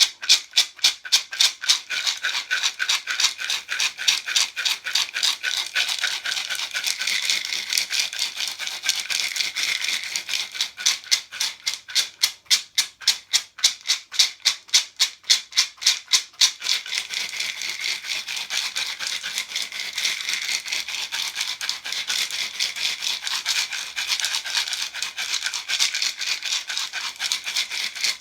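Handmade calabash (gourd) rattle shaken in a steady rhythm, each shake a crisp rattle. In places the strokes stand apart, and in others they run together into a denser, continuous shake.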